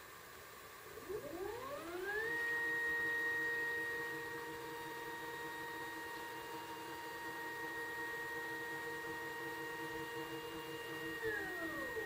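Astro-Physics Mach2GTO mount's motors slewing at 1200x speed: a clean hum of several tones that rises in pitch about a second in, holds steady, and glides back down near the end as the motors slow to a stop.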